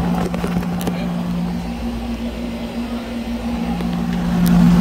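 Delfield under-counter refrigerator's condensing unit running at start-up on a newly fitted start kit: a steady electrical hum that fades for a moment about two seconds in and then comes back stronger. A few light handling knocks come early on.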